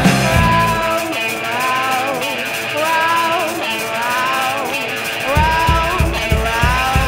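Background rock music with a singing voice. The bass and drums drop out about a second in and come back with a steady beat about five seconds in.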